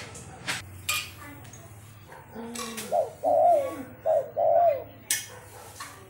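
Spotted dove cooing: a soft low note, then four coos in two pairs, each a short note followed by a drawn-out one, starting about halfway through. A few sharp clicks come before and after the call.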